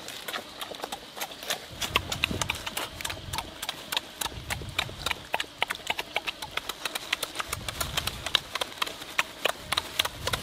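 Close, loud mouth sounds of eating: a rapid run of lip-smacking and chewing clicks as grilled fish is eaten with the mouth open, with a few dull low thumps of handling.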